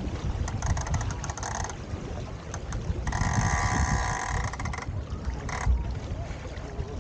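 Wind buffeting the microphone and water rushing along the hull of a 29er skiff sailing under spinnaker. Brief higher-pitched sounds come through about a second in and again from about three to five seconds in.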